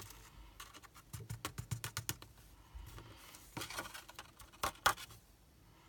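Faint tapping and pattering as a folded card is tipped and flicked to knock loose gold embossing powder off onto scrap paper. A quick run of light taps comes about a second in, then a few sharper flicks later on.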